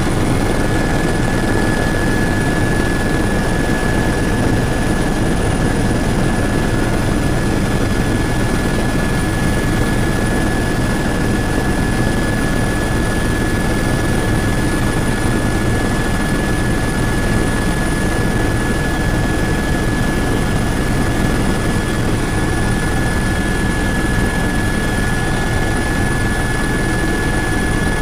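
Helicopter engine and rotor noise heard from inside the cabin in flight: a steady loud drone with a constant high whine over it.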